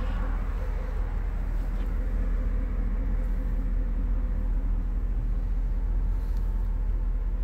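Steady low rumble with a hiss, the sound of a vehicle running.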